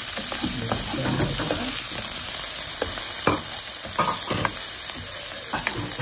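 Sliced onion, garlic and ginger sizzling in hot oil in a frying pan, stirred with a spatula that scrapes and taps against the pan. A few sharper knocks of the spatula come about three, four and five and a half seconds in.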